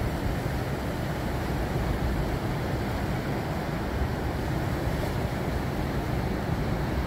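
Ocean surf breaking and washing ashore in a steady roar of waves, with wind buffeting the microphone.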